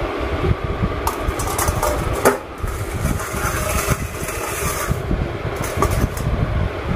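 A stainless steel dog bowl is set down on a tile floor with a sharp clack about two seconds in, then handled against the floor, over a steady low rumble.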